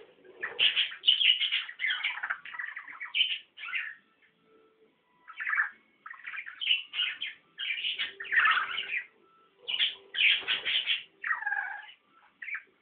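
Pet budgerigars chattering: runs of quick chirps and squawky warbling, with a pause of a second or so about four seconds in and a short one near the end.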